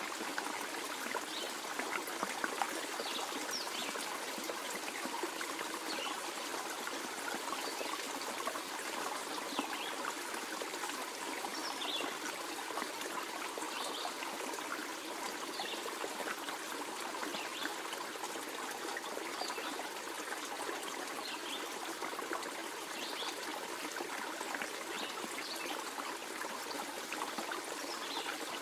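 Steady flowing and trickling of river water over a shallow stretch.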